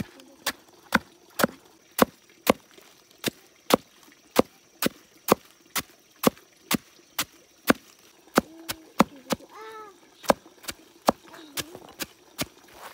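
Blade chopping steadily on wood, about two sharp strokes a second.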